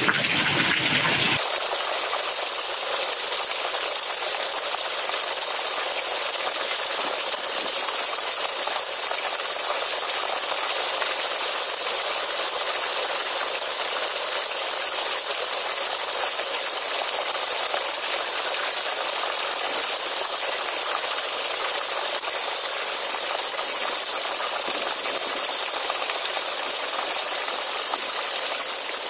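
Heavy rain falling steadily: a continuous, even hiss.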